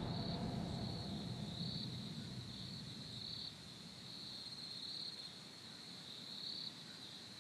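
Crickets trilling steadily at one high pitch, swelling a little louder every second or two, over a faint low rumble.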